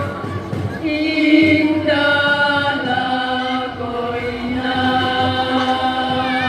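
School choir singing long held chords, the harmony moving to a new chord about every second.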